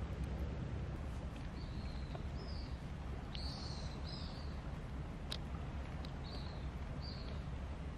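A bird chirping in short calls, about seven of them, some falling in pitch, over a steady low rumble of wind on the microphone, with a sharp click about five seconds in.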